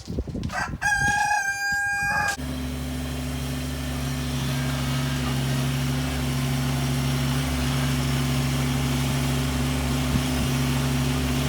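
A rooster crows once, a call of about a second and a half. Then, from about two and a half seconds in, an engine runs steadily at an even, low pitch.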